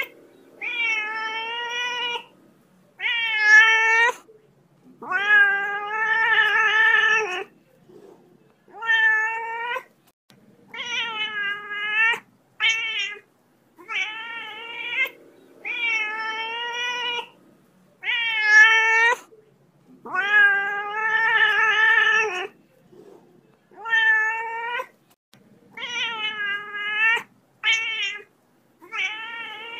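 A domestic cat meowing over and over: about a dozen drawn-out meows, each one to two seconds long, with short gaps between them.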